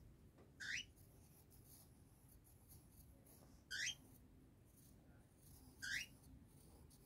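A bird gives three short rising chirps a few seconds apart over near silence. Between them a pencil writing on notebook paper makes a faint scratch.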